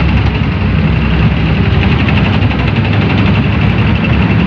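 Sound effect of a military tank's heavy engine running: a loud, steady, deep rumble.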